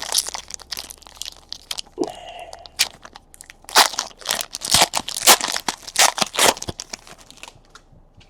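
Foil trading-card pack wrappers being torn open and crinkled by hand, a dense run of irregular crackles and rips that dies away near the end.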